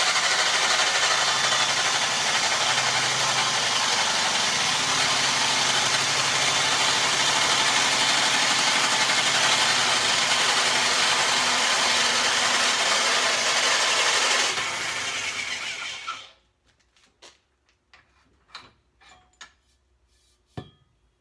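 Electric drill driving a tube notcher's cutter through a 1 5/8-inch roll-cage tube, a steady cutting noise that winds down and stops about fifteen seconds in. A few light clicks and taps follow.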